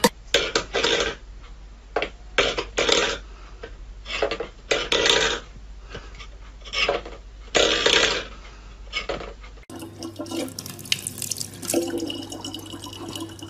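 A steel pet bowl scraped and knocked about on a wooden floor in irregular short bursts. Then, about ten seconds in, a faucet runs a thin steady stream of water into a plastic bottle, with a low hum.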